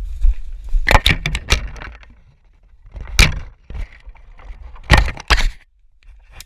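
Irregular sharp cracks and snaps in three clusters, about a second in, a little after three seconds and around five seconds, over a low wind rumble on the microphone.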